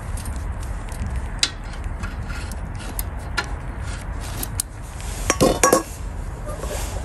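Metal tongs clinking against a perforated metal steamer basket as chestnuts are turned over the fire, a few sharp clicks, then a louder ringing metallic clatter about five seconds in. A steady low rumble runs underneath.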